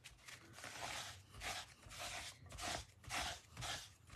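A damp baby wipe rubbing over a thin translucent stamping mask to clean water-based ink off it, in soft repeated wiping strokes about two a second.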